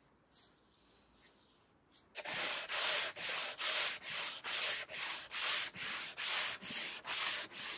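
Sandpaper held in the hands rubbing back and forth over the stripped wood-veneer top of a credenza. It starts about two seconds in after a quiet stretch and goes as a regular scratchy rasp of about two strokes a second.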